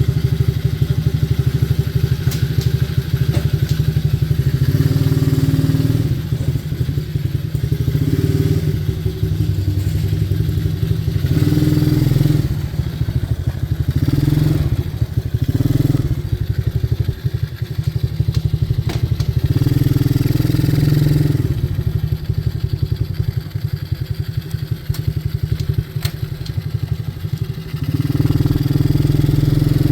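Coolster 125cc ATV's small four-stroke single-cylinder engine running and being revved up in short bursts several times, its note rising with each blip of the throttle on a newly fitted throttle cable.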